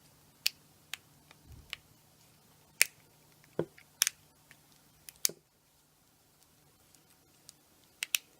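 A series of sharp, irregular clicks and taps of small hard objects being handled, about nine over several seconds, with a quick double click near the end.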